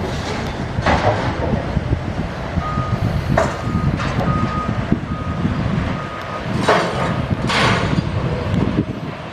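Heavy vehicle's reversing alarm beeping steadily for a few seconds over the low rumble of its diesel engine, with a few short bursts of hiss.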